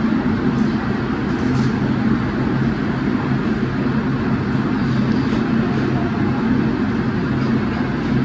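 Steady low mechanical hum, with faint light clicks now and then.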